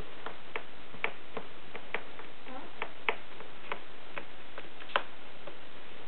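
Irregular sharp clicks and taps, two or three a second, the loudest about five seconds in, as Siberian kittens scrabble and claw inside a plastic circular track toy.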